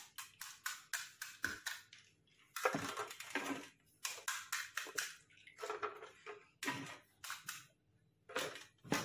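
Crisp fried golgappa (pani puri) shells being cracked open by fingers poking through their tops: clusters of sharp crackles, one puri after another, with short pauses between them.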